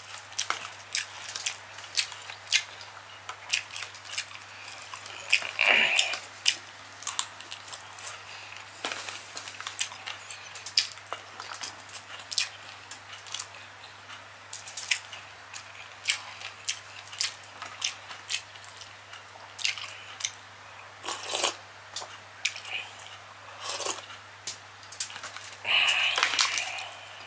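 Close-miked eating: irregular wet smacking and chewing clicks from a mouth eating rice and Cajun seafood by hand, with a couple of louder, longer mouth noises about six seconds in and near the end. A faint steady low hum sits underneath.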